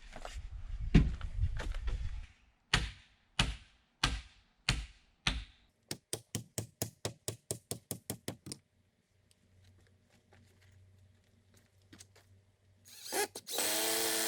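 Work on wooden concrete formwork: a rough rumble of handling, then about five sharp knocks a little over half a second apart, like hammer blows. A fast run of lighter taps follows, about six a second, and near the end a power drill runs for about a second.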